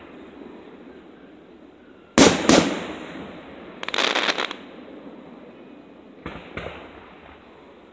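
Aerial fireworks going off: two loud bangs about a third of a second apart about two seconds in, a half-second burst of rapid crackling around four seconds, and two lighter pops later on.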